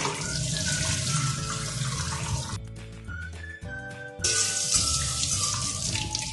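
Kitchen tap water running onto beef pieces in a steel colander in a stainless-steel sink, in two spells: about two and a half seconds, a pause of a second and a half, then about two seconds more. Background music plays underneath.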